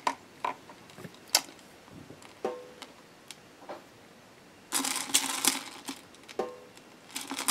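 Wooden spatula stirring still-hard wax beads in the metal inner pot of a wax warmer: scattered clicks and rattles, with a denser stretch of rattling about five seconds in and again near the end.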